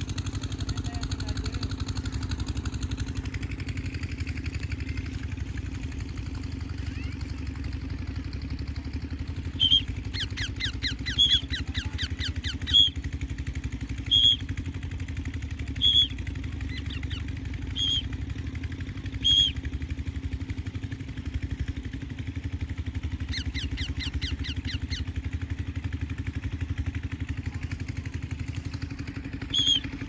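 An engine running steadily throughout. In the middle a row of short, sharp high-pitched sounds comes about every second and a half, with two quick chattering runs.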